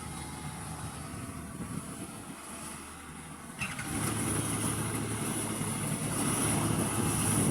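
Rice combine harvester's engine running steadily, becoming suddenly louder and fuller about three and a half seconds in.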